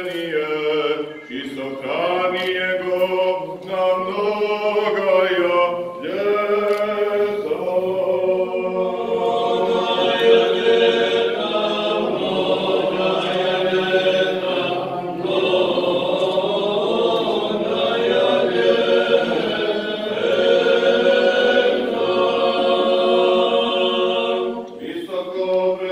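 Voices singing a Serbian Orthodox liturgical chant a cappella in harmony, in long held phrases with short breaks between them.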